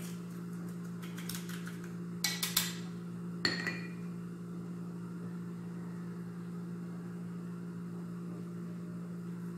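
A spoon clinking and tapping against a glass chopper bowl and small dishes as seasonings are spooned in: a few sharp clinks between about one and four seconds in, the last one ringing briefly. A steady low hum sits underneath throughout.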